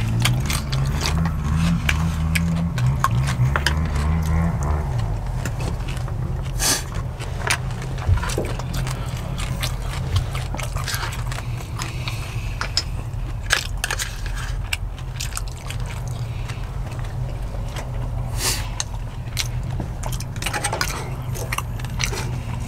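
Spoon clicking and scraping against a plastic takeout container as someone eats rice from it, a run of scattered short ticks with a few louder clicks, over a steady low rumble.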